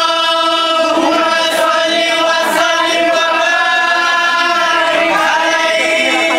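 Male voices chanting in unison, holding a single long note steady in pitch.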